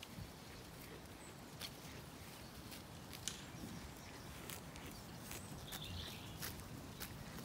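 Zwartbles sheep cropping grass: faint, crisp tearing clicks at irregular intervals, about one or two a second.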